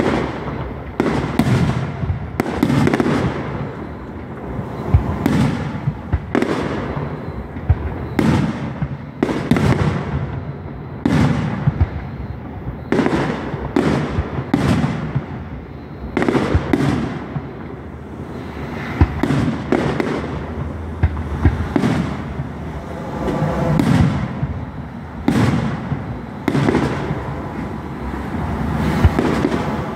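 Aerial fireworks display: shell bursts in quick succession, one or two booms a second, each with a rolling echo, and crackling between them.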